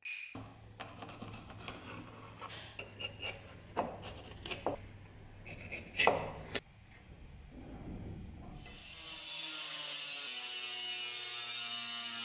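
Elk antler worked by hand: irregular scraping and rubbing strokes with a few sharp knocks. About nine seconds in, an angle grinder with a sanding flap disc takes over, running steadily with a hiss and a steady motor whine.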